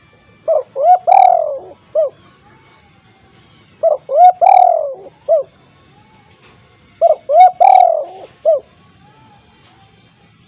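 Spotted dove (tekukur) cooing loudly: three repeated phrases about three seconds apart, each two short coos, a longer falling coo and a short closing note.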